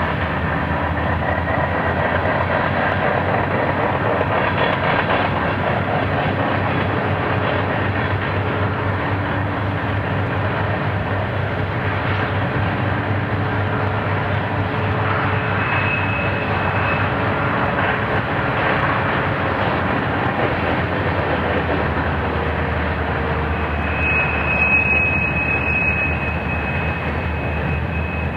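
Diesel locomotives hauling an empty coal train upgrade: a steady engine drone with the rumble of the train. A thin high squeal comes in briefly about halfway through and again for a few seconds near the end.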